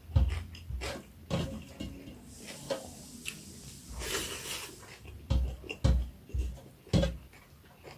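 Close-up eating sounds of someone eating pork curry: chewing and wet mouth sounds with irregular soft thumps and clicks, and a couple of brief hissy slurps or rustles in the middle.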